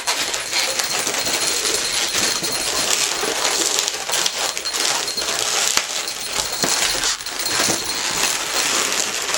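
Latex modelling balloons (260s) being twisted and handled, squeaking and rubbing against each other and the hands.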